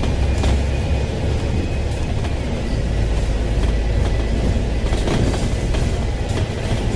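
Hong Kong double-decker bus's diesel engine running under way, heard from inside the cabin: a steady low rumble with rattles and knocks from the body.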